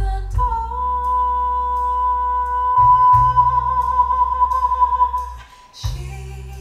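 Music played back through hi-fi speakers with an active subwoofer: one long held high note over sustained deep bass, with light ticking percussion.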